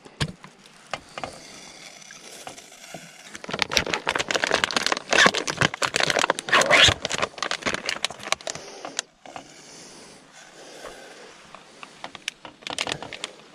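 A plastic packet of fresh pasta being torn open and crinkled by hand, a dense crackling that is loudest from about three and a half to eight seconds in. Quieter handling follows, then more rustling near the end as the pasta is tipped from the bag into a pot.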